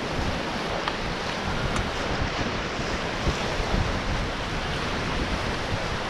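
Whitewater rushing in a river rapid as a raft runs through it, a steady noisy roar with wind buffeting the microphone.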